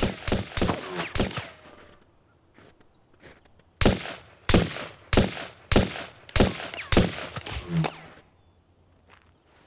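Handgun gunfire: a rapid string of shots in the first second or so, a pause, then about seven single shots roughly two-thirds of a second apart, each with a short echoing tail, stopping about eight seconds in.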